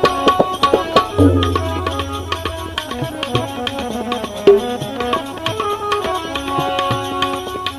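Bhajan accompaniment without singing: hand drums playing fast strokes over held melodic tones, with a deep bass drum note ringing on for over a second about a second in.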